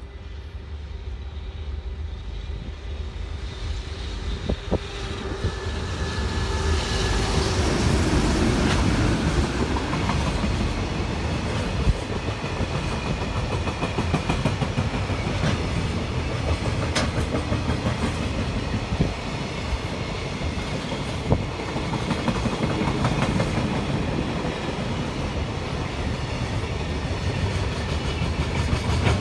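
Container freight train hauled by a JR Freight EH500 electric locomotive, approaching and growing louder over the first several seconds, then its long string of container wagons rolling past with a steady clickety-clack of wheels over the rail joints, with an occasional sharper clack.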